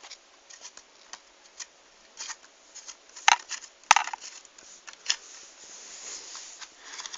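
Small plastic clicks and rattles from a toy remote-control transmitter being handled while its antenna is screwed in. Two sharper clicks come about three and four seconds in, and a soft rustle follows near the end.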